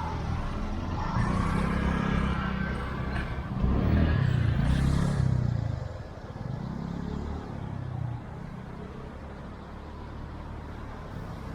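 Road traffic: car engines passing, the rumble swelling twice in the first half, then settling to a quieter steady hum.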